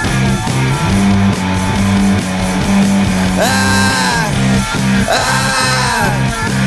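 Rock song: an instrumental passage of electric guitar over bass and drums, with two long notes about halfway through that bend downward in pitch.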